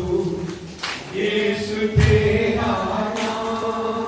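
A congregation singing a hymn together, with held notes, and a low thump about two seconds in.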